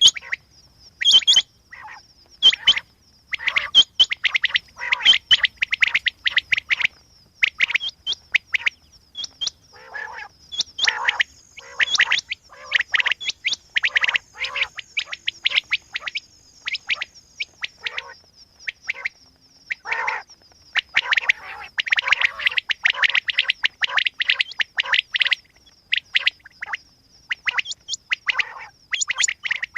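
Quail calling: dense runs of short, sharp chirps, some packed into rapid clusters with brief pauses between, over a thin steady high-pitched tone.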